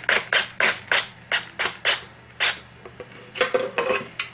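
Cordless power drill driving a screw in about ten short trigger pulses, a few a second, with a quicker cluster near the end. It is pulsed rather than run steadily so as not to crack the wooden board.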